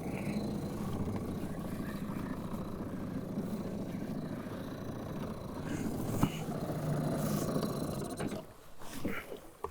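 A small boat motor running steadily while trolling, cutting out about eight seconds in, with a sharp click about six seconds in.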